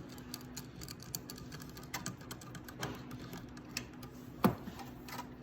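Irregular small clicks and ticks of a strap clamp being tightened down around an oxygen concentrator's sieve bed, with one sharper click about four and a half seconds in.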